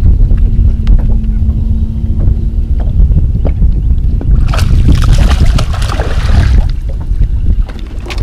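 Wind buffeting the microphone in a heavy low rumble. For about two seconds in the middle, splashing as a hooked bass thrashes at the surface.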